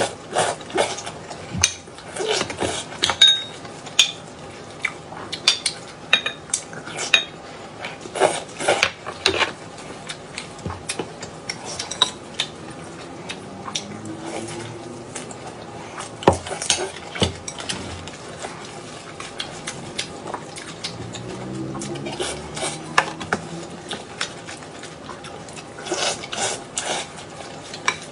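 A spoon clinking and scraping against a bowl in many short, irregular knocks as bibimbap is mixed and eaten.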